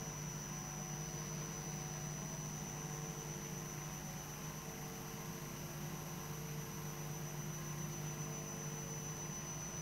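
Quiet, steady room tone: a low hum with faint hiss and a thin high-pitched whine, and no distinct sounds.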